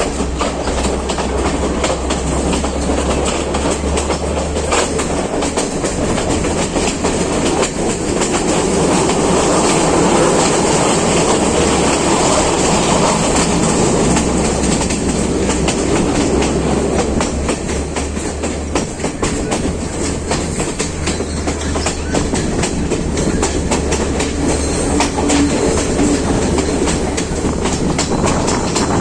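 Passenger train running along the track: a steady rumble with the wheels clacking over the rail joints.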